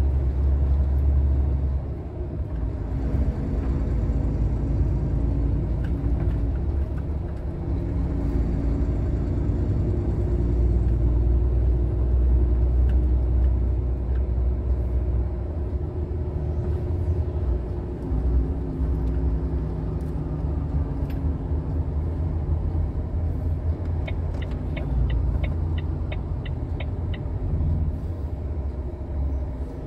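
Steady low rumble of a truck's engine heard from inside the cab while driving in traffic, the engine note shifting a little now and then. Near the end comes a quick run of about ten evenly spaced clicks.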